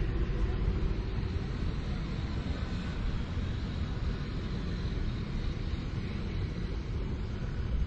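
A small boat's engine running steadily, a low continuous rumble with no breaks.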